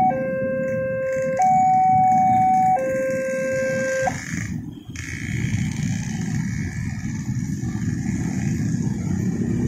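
Railroad crossing warning alarm sounding an alternating two-tone electronic signal, low and high, switching about every second and a half. It cuts off about four seconds in as the barrier arm rises, the sign that the crossing has reopened. The engines of motorcycles and a car waiting at the crossing then run as the traffic moves off over the tracks.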